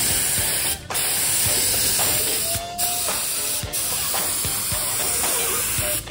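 Compressed-air paint spray gun spraying with a steady hiss, broken by short pauses near one, three and four seconds in as the trigger is let off.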